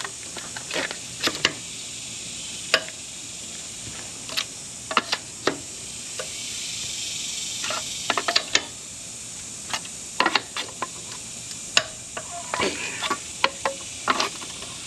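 Irregular sharp metallic clicks and clanks of a socket and breaker bar being worked on a pickup truck's wheel lug nuts to break them loose, over a steady background hiss.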